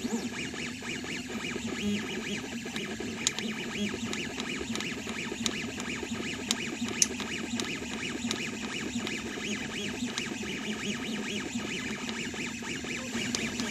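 MakerFarm Prusa i3v 3D printer running, its stepper motors whirring in ever-changing tones, with a few sharp clicks. The owner is hunting an odd creaking noise that he suspects comes from the extruder.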